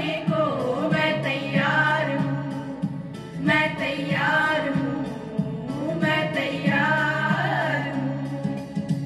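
A group of women singing a song together through microphones, over a low held instrumental accompaniment that steps between notes.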